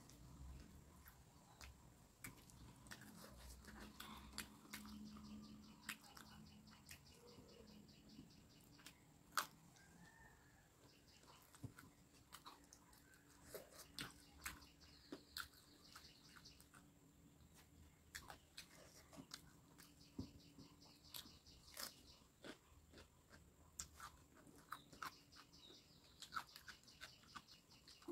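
Faint chewing and small mouth and finger clicks of a person eating rice and fritters by hand, mixing the food on a steel plate. Soft clicks come scattered throughout, with one sharper click about a third of the way in.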